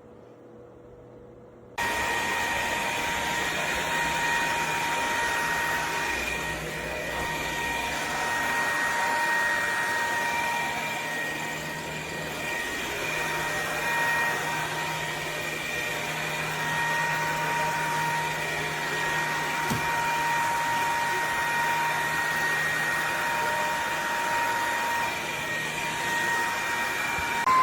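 Bissell PowerClean 200W cordless stick vacuum switching on about two seconds in and running steadily: a motor whine with a steady high-pitched tone over the rush of air.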